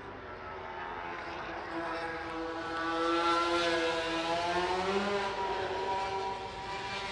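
Racing motorcycle engine passing at speed on the circuit's front straight. Its high engine note swells to its loudest about three to four seconds in, bends in pitch, then fades off somewhat.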